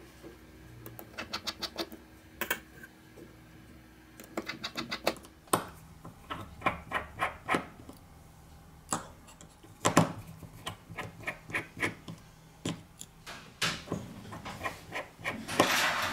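A precision screwdriver working the small screws inside a OnePlus 3T, heard as quick runs of small sharp clicks and taps every second or two, with a brief hiss near the end.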